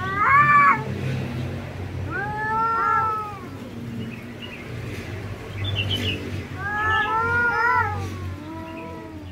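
Two cats in a face-off yowling at each other: about four drawn-out, wavering caterwauls, the loudest at the start. These are the warning calls of a territorial standoff between the cats.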